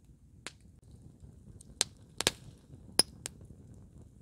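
About six short, sharp snaps and clicks, the loudest about two and three seconds in.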